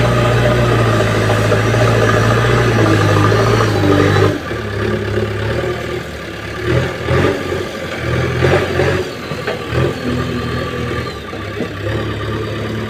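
Diesel engine of a JCB machine running hard, then dropping to a lower, quieter speed about four seconds in. A few knocks and clatters follow as it keeps running.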